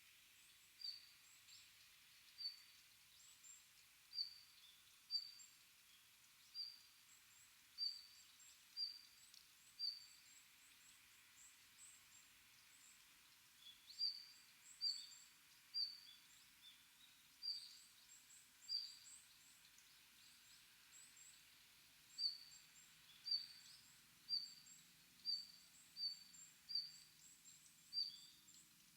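A small songbird repeating a short, high call note about once a second, in three runs with brief pauses between, while fainter high twittering from other birds sounds behind it over quiet forest background.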